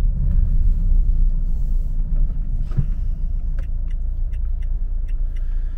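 Steady low rumble of a diesel car's engine and tyres on the road, heard from inside the cabin while driving.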